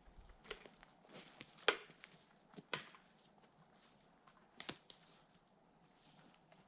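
A few faint, scattered knocks and clicks, about seven in all and spread irregularly, with a stronger pair in the first three seconds.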